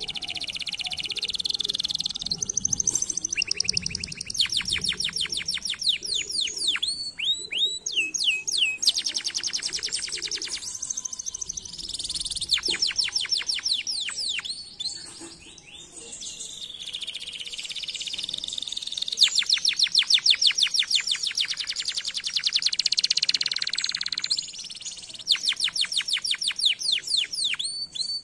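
Domestic canary singing: long phrases of rapid trills, runs of fast repeated notes, many sweeping down in pitch, mixed with rolling passages and broken by short pauses.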